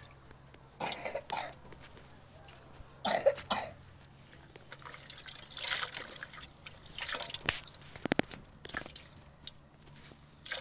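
Water splashing and trickling in a metal cooking pot as hands wash food in it, in several short separate bursts, with a quick run of sharp clicks about eight seconds in.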